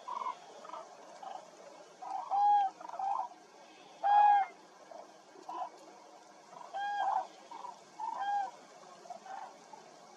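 A flock of common cranes calling, several birds overlapping, with a call roughly every second.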